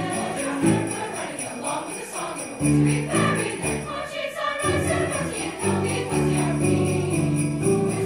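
Mixed choir singing, with sleigh bells shaken in a steady beat over the voices. The singing breaks briefly a little past the middle, then comes back in.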